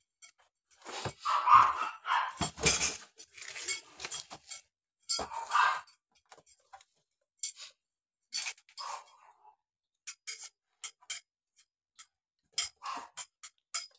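Thin metal shoe-rack tubes clinking and rattling against each other and clicking into the plastic side frames as they are handled and fitted. There is a longer rattle about a second in, another just past the middle, then scattered light clicks.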